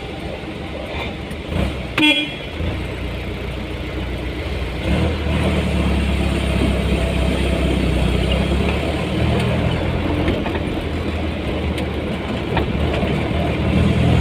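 Road traffic noise with a vehicle engine running steadily, and a short horn toot about two seconds in.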